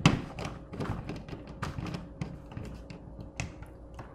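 Scattered clicks and light taps of hands working stiff wires and a screwdriver against the plastic back plate of a Tesla Wall Connector, with a sharper knock right at the start as the push-in cable clamp is seated.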